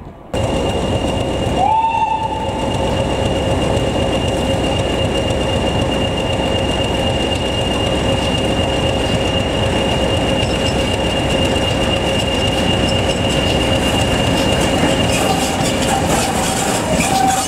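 Midland 4F 0-6-0 steam locomotive pulling away with its passenger train: a loud, steady rush of steam and running gear with two steady tones held above it. A brief rising tone comes about two seconds in.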